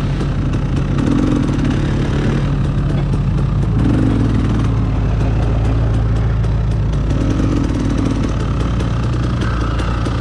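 Enduro dirt bike engine running steadily at low revs, its pitch dropping slightly about four seconds in.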